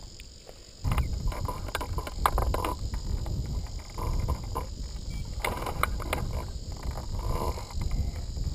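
Wind buffeting the glider-mounted camera's microphone, a low rumble with irregular rustling that starts about a second in. A steady high chirring of insects runs underneath.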